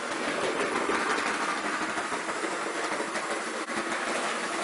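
HO-scale Proto 2000 EMD GP30 model diesel locomotive running on sectional track: a steady whir of its motor and gearing, with light clicks as the wheels cross the rail joints.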